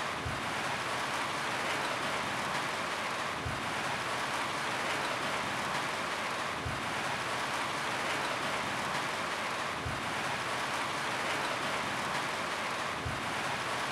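Steady rain falling on a roof, an even hiss, with a soft low thud about every three seconds.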